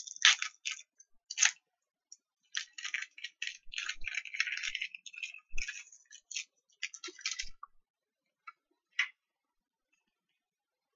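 Foil wrapper of a Pokémon trading-card booster pack crinkling and tearing as it is opened, in clusters of crackly rustling, then a couple of faint clicks near the end as the cards are taken out.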